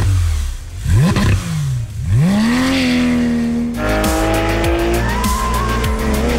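Porsche 911 GT3 RS's 4.0-litre flat-six boxer engine revving. It gives several quick throttle blips, then a long high-revving run whose pitch steps up about four seconds in and keeps climbing slowly under acceleration.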